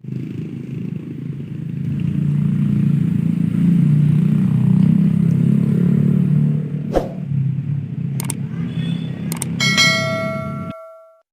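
A loud, steady low rumble with a few sharp clicks, the last followed by a bright metallic ringing of several tones that cuts off abruptly near the end.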